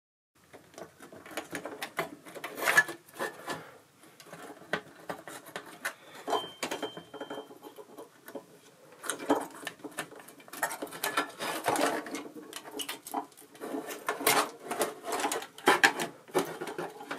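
Irregular clicks, taps and rattles of hands and screws working at the main circuit board of an opened Yamaha DX7 synthesizer as the board is unscrewed and lifted from its chassis. A brief thin squeak sounds about six seconds in.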